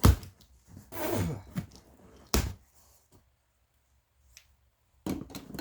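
Handling noise from unpacking: a sharp knock right at the start, rustling about a second in, and another knock a little over two seconds in, as items and packaging are set down. Then a quiet stretch, with handling noise again near the end.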